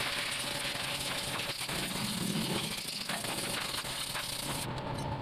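Compressed-air blow gun hissing steadily as it blows out the exposed top end of a scooter engine, cutting off about half a second before the end.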